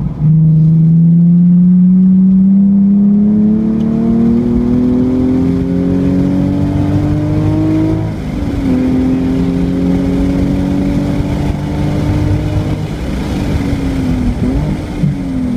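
Nissan 370Z Nismo's 3.7-litre V6 heard from inside the car at full throttle, its pitch rising steadily through one long pull. About eight seconds in the revs drop sharply with an upshift, and the car pulls on at a fairly steady pitch. Near the end the revs dip and rise in a couple of quick blips as the car brakes and downshifts.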